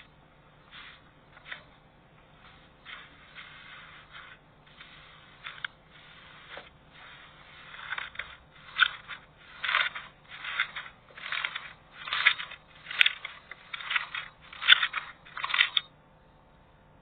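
Slime being pressed and squeezed by hand, making a run of short noisy squelches and crackles. They are faint and spaced out at first, then come louder and regularly, about one a second, from about halfway in, and stop shortly before the end.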